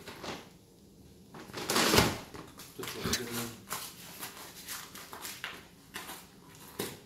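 Paper rustling and a fabric collection bag rustling as a dog noses into it and mouths scraps of waste paper, with one loud rustle about two seconds in, then lighter scuffs and clicks as it moves about on the tiled floor.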